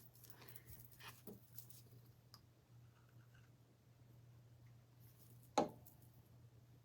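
Small wooden craft pieces being handled on a tabletop: a few light clicks and taps, then one sharp knock about five and a half seconds in as a piece is set down.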